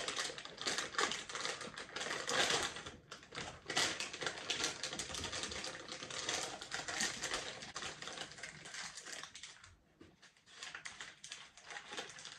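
MRE ration pouches and their plastic heater sleeve crinkling and rustling as they are handled: the pound cake pouch is pulled out and the chili mac pouch turned in its flameless heater. A dense run of small crackles that eases briefly about ten seconds in.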